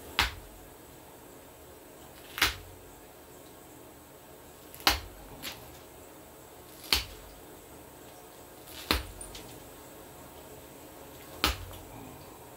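Hand awl pushed through leather, a sharp snap each time the point breaks through, six times about two seconds apart.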